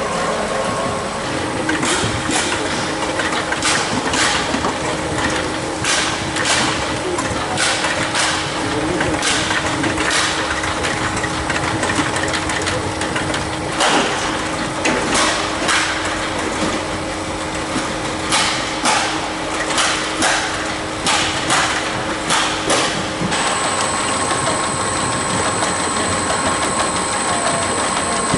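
NOVAGRAM+ fruit sizing machine running on peaches: a steady mechanical running noise with frequent irregular sharp clacks, then a steady high whine that starts about 23 seconds in.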